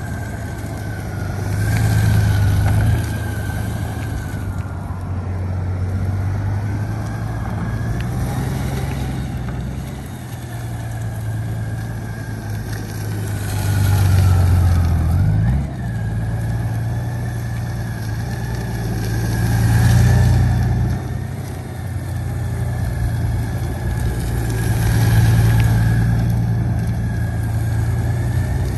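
Honda Gold Wing's 1833 cc flat-six engine running at low speed on a little steady throttle during slow, tight turns, swelling and easing in level several times, with one quick rise in pitch about halfway through.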